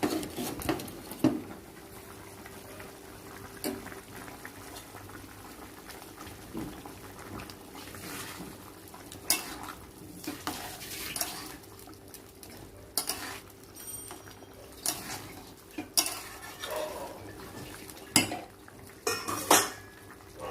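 A metal spoon stirring a pot of vegetable curry, clinking and scraping against the pot at irregular intervals, with a steady faint hum underneath.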